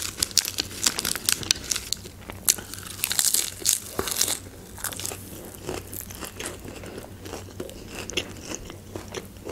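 Crisp lettuce leaf being bitten and chewed: an irregular run of crunches, densest in the middle.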